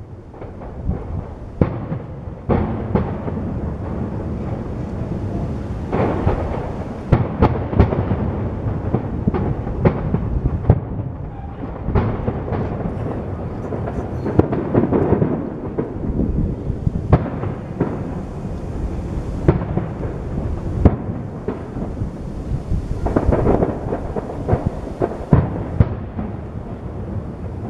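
Aerial firework shells bursting in a dense barrage: many sharp bangs in quick succession, overlapping into a continuous rumble.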